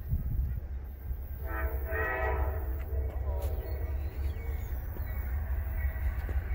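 Horn of a distant approaching Norfolk Southern diesel locomotive, sounding one short blast with a brief break, about a second and a half in, over a steady low rumble.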